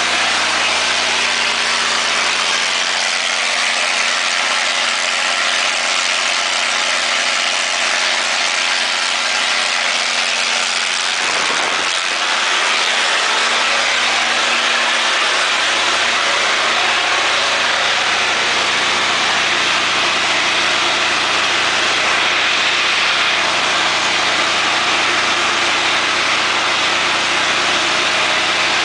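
Kohler 135 kW standby generator set's Cummins G-855 natural-gas engine running steadily at constant governed speed while producing power.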